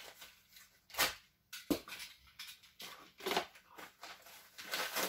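Parcel packaging being handled: a few short rustles and light knocks as a small package is picked up and turned over, the loudest about a second in.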